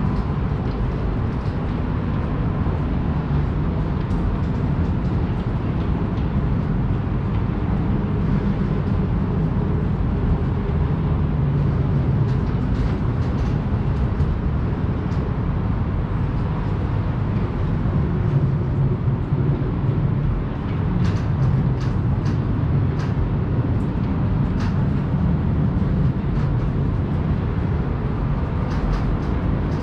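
A steady low rumble of noise, with a few faint clicks about two-thirds of the way through.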